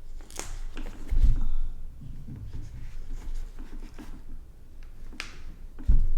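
Hands fitting a helmet intercom's stick-on microphone and Velcro pad: small scrapes and clicks, two short rasps and two dull thumps against the helmet, one about a second in and one near the end.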